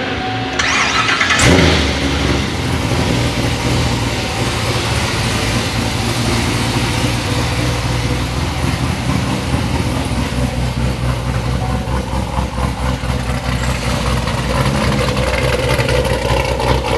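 Supercharged 6.2-litre LT4 V8 of a C7 Corvette Z06, built to about 850 horsepower with a ported supercharger, cranking briefly on the starter and catching about a second and a half in with a loud flare, then idling with a rhythmic beat. It is a start-up on a freshly loaded tune.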